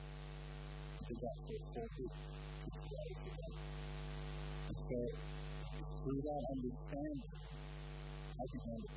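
A steady electrical mains hum with a soft, sustained keyboard pad underneath. A voice comes in quietly now and then.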